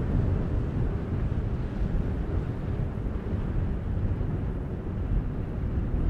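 Low, uneven rumble of wind buffeting the microphone, with no clear engine tone.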